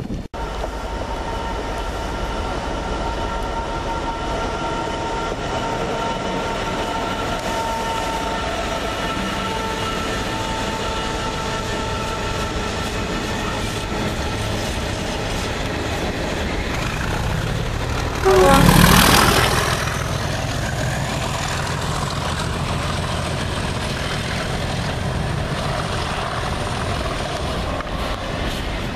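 Class 37 diesel locomotive's English Electric engine running as it approaches and passes, with a steady engine note and a brief loud rush of noise about two-thirds of the way in.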